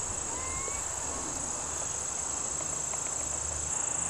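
Steady, high-pitched chorus of insects, such as crickets, calling without a break.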